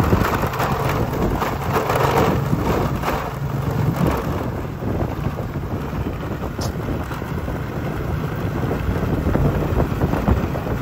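Wind buffeting the microphone: a steady, uneven rushing noise, heaviest in the low range.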